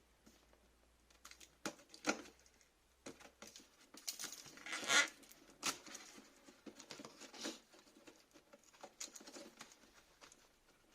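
Cardboard box and packaging being handled and opened: irregular scraping, rustling and light knocks, with a louder rustle about five seconds in.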